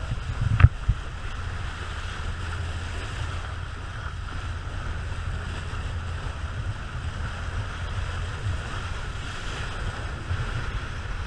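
Wind rumbling on the microphone over the steady noise of a moving cruise boat and water rushing along its hull, with a single sharp knock about half a second in.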